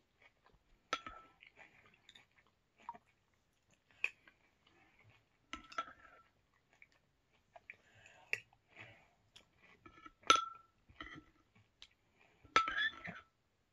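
Metal spoon clinking against a ceramic cereal bowl several times, each clink ringing briefly, the loudest about ten seconds in. Between clinks there is quiet chewing of cereal.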